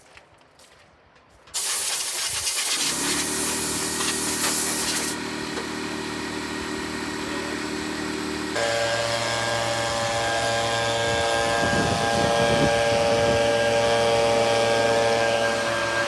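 Compressed air blasting with a loud hiss, starting suddenly about a second and a half in, while a motor starts up behind it with a steady hum. About halfway through the sound steps up to a higher, steady whine of the running machine.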